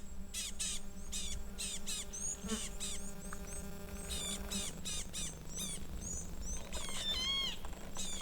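Small birds chirping: short, high, hooked calls repeated in quick runs throughout, over a low steady hum.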